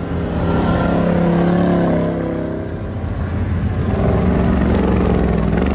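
Chugzilla tracked vehicle's GM L94 6.2-litre V8 running hard under load through deep snow. Its note drops over the first couple of seconds and then climbs again around halfway through.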